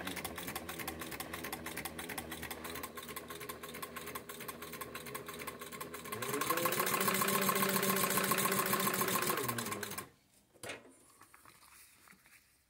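Singer 31-15 industrial lockstitch sewing machine, on a servo motor, sewing through leather: a fast steady clatter that speeds up and gets louder about six seconds in, then slows and stops about ten seconds in. A single knock follows shortly after.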